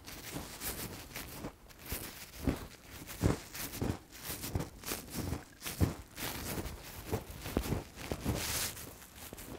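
Dry fallen leaves crunching and rustling as a crouching person shifts his weight and moves about: an irregular run of crackles and scuffs.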